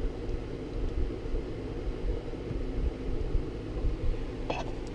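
Steady low room hum, with one small click near the end.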